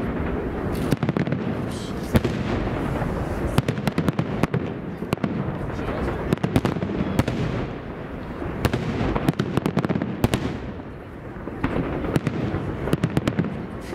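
Fireworks display: aerial shells bursting in quick succession, with many sharp bangs and rapid crackling, easing briefly about eleven seconds in before picking up again.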